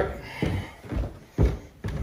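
Footsteps going down a flight of indoor stairs: four heavy, even thuds about two a second.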